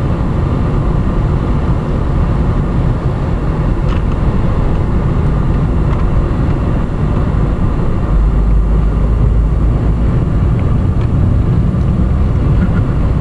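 Steady rumble of a car driving, heard from inside the cabin. The low rumble gets heavier about eight seconds in.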